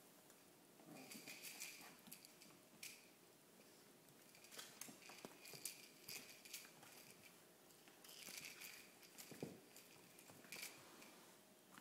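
Faint scuffling and scratching with short sharp clicks, coming in bursts every second or two, from a puppy tussling with a toy octopus.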